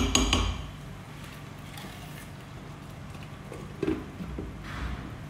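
A spatula knocking and scraping against a kadhai at the start, then a glass lid set down on the pan a little under four seconds in, over a steady low hum.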